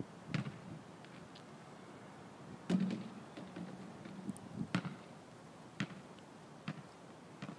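Basketball bouncing on asphalt: about half a dozen separate thuds at uneven intervals rather than a steady dribble.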